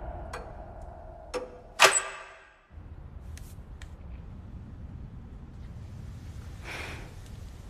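A few sharp clicks in the first two seconds, the loudest about two seconds in, as a low hit fades out; then a steady low hum with a faint soft swell near the end.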